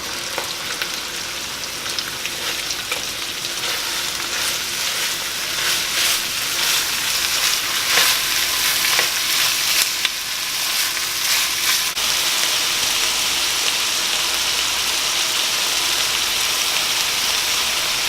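Onions and carrots frying in olive oil in a pan: a continuous sizzle with crackling. It grows louder and busier a few seconds in, then settles into an even hiss about two-thirds of the way through.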